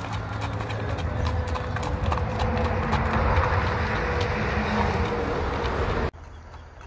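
A ridden mule's hooves clopping and crunching on gravel in a steady rhythm. About six seconds in the sound drops abruptly to a quieter, fainter background.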